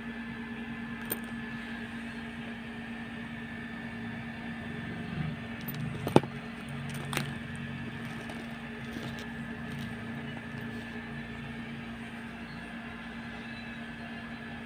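Steady low hum throughout, with a few light clicks and knocks from a handbag and its metal zipper pull being handled. The loudest click comes about six seconds in.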